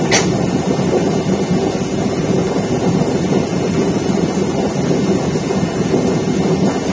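Steady, loud drone of an aircraft in flight heard from inside the passenger cabin, with a constant low hum running under the noise. A brief sharp click right at the start.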